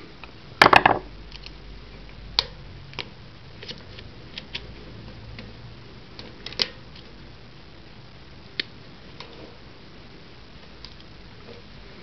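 Light metallic clicks and taps of a screwdriver and a steel snap ring against the sprocket of a Shimano Alfine 8-speed hub as the ring is worked back on. There is a quick cluster of clicks a little under a second in, then single clicks every second or two.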